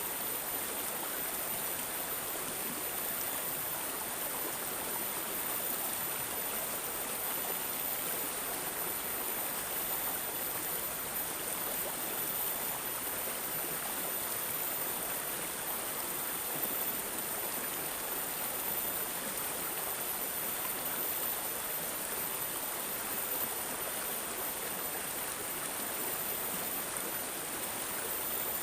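Water babbling and gurgling steadily, like a small stream flowing over stones, with no breaks or changes.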